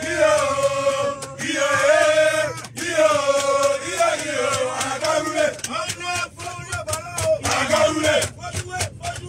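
A group of men singing a celebration chant together, holding long notes. About halfway through, the singing turns choppier and more shouted, with sharp hits mixed in.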